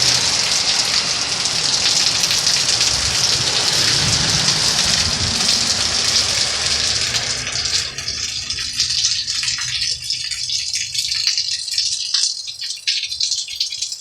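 Steady heavy rain that eases about eight seconds in, leaving scattered drops pattering and ticking.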